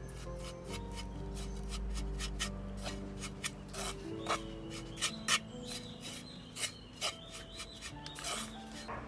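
Wooden spoon scraping and stirring dry spice powder around an unglazed clay pot: a run of short, irregular scrapes, over background music.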